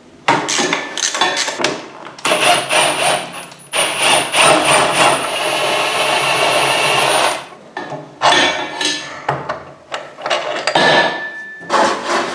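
Tools working on metal during a motorcycle rear-end strip-down: a series of sharp knocks and taps, then a steady noisy stretch of several seconds with a faint high whine, then more knocks.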